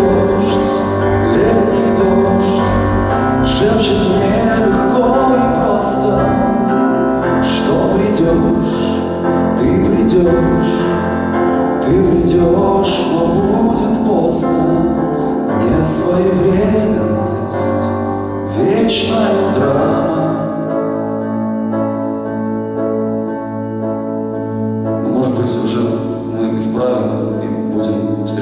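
A man singing live into a microphone to his own electronic keyboard accompaniment, amplified through the hall's sound system. The voice pauses for a few seconds about three-quarters of the way through while the keyboard carries on.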